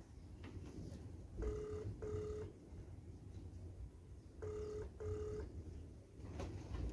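Ringback tone of an outgoing call from a mobile phone on speaker, faint: a low steady tone in pairs of short rings, twice, about three seconds apart, while the call waits to be answered.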